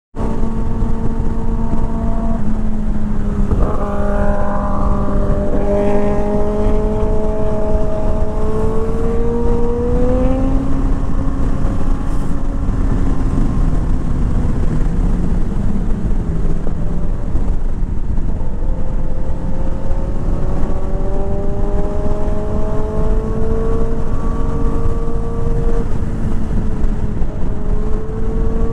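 Kawasaki ZX-10R superbike's inline-four engine running under load, its pitch climbing slowly from about four seconds in, easing back down, then climbing again in long sweeps over a heavy rumble.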